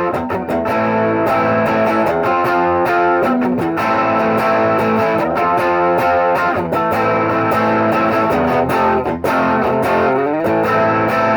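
T-style electric guitar played through its P90 bridge pickup with a little gain, light overdrive: chords and picked notes ringing on, with a brief drop in level about nine seconds in.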